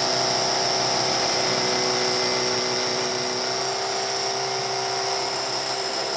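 Power drill boring a 3/4-inch, 18-inch-deep hole into concrete for a tie-down threaded rod, running steadily with a high whine.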